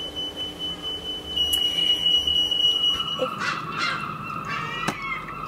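A smoke alarm sounding a steady high-pitched tone, set off by cooking in the house. About three seconds in it gives way to seagulls squawking over and over, with one sharp click near the end.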